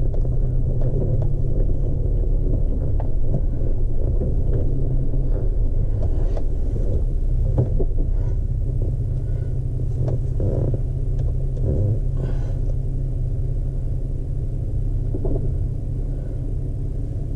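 Chevy Colorado ZR2 pickup's engine running with a steady low rumble, heard from inside the cab on a dirt trail, with scattered light knocks.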